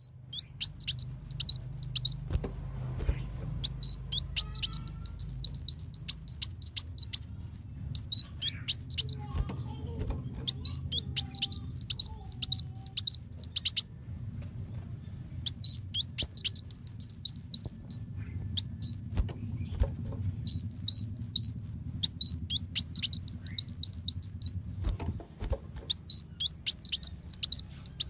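Kolibri wulung sunbird singing: phrases of quick, sharp, high chirps, each phrase lasting one to four seconds, repeated with short pauses between, over a faint steady low hum.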